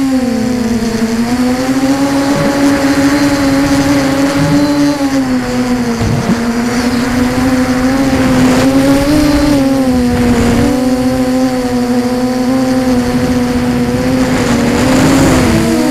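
Electric motors and propellers of an HK Scarab 360 FPV multirotor in flight, recorded by its onboard camera: a steady pitched hum whose pitch dips about a second in and then rises and falls gently with the throttle. Gusts of wind rushing over the microphone come and go.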